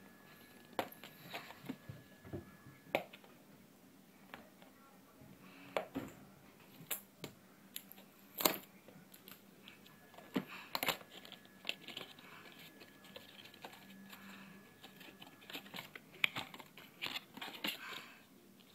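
Cardboard packaging of a small toy being opened and handled by hand: irregular light taps, clicks and short crinkling scrapes, with one sharper click about eight seconds in.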